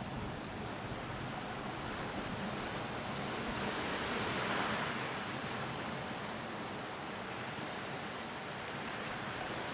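Surf washing on the beach, a steady rush that swells to a peak about halfway through and then eases back.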